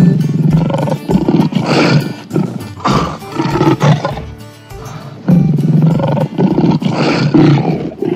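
Lion roaring repeatedly, three or four long loud roars, over background music.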